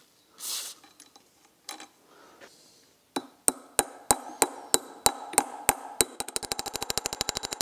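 A small steel hammer drives a tight press-fit flywheel bolt, freezer-chilled, into the crankshaft flange of a Citroën U23 engine. Metal-on-metal blows start about three seconds in, about three a second, and each one rings. Near the end they turn into a quick run of lighter taps, about eight a second.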